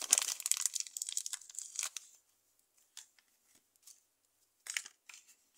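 Thin clear plastic bag crinkling and rustling as a lump of modelling clay is handled and pulled from it, dense for the first two seconds, then only a few faint rustles and clicks.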